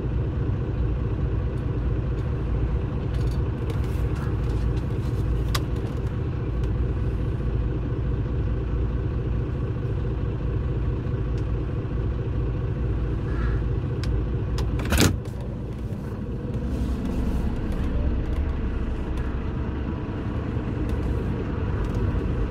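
Heavy goods truck's diesel engine running steadily with a low drone. A single sharp knock about 15 seconds in, after which the engine sound is a little quieter.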